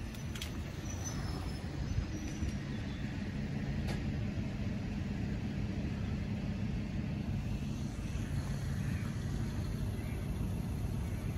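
Road vehicle engine idling with a steady low drone, with a couple of faint clicks near the start.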